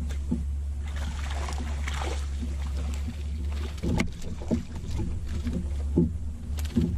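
A hooked bass splashing and thrashing at the surface beside an aluminium jon boat as it is reeled in, over a steady low hum. A sharp knock comes about four seconds in, followed by a run of short knocks and splashes.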